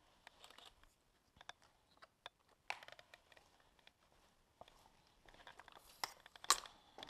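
Scattered crunches, clicks and knocks of footsteps on a debris-strewn floor while a camera tripod is picked up and handled, with a sharp knock near the end.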